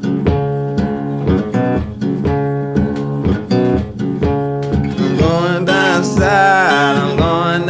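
Background music: acoustic blues guitar picking a repeated plucked pattern, with a singing voice coming in about five seconds in.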